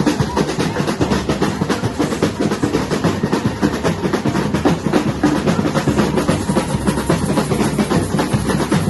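Batucada samba percussion ensemble playing a fast, dense drum rhythm with steady, unbroken strikes.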